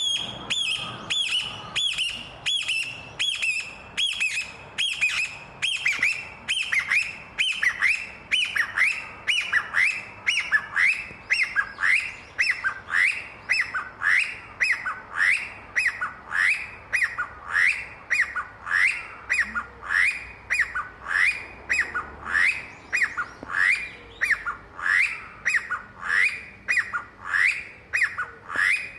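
Chinese bamboo partridge calling: a long, even run of loud, sharp repeated notes, more than one a second. Each note is a quick curved sweep in pitch.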